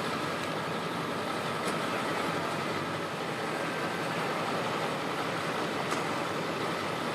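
Steady hum of engines running in a wash of outdoor noise, with a couple of faint clicks.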